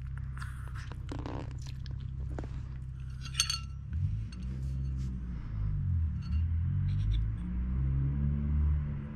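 Metal fork clinking and scraping against a ceramic plate while cutting a piece of roll cake: one sharp ringing clink, then a few lighter taps, over a low hum.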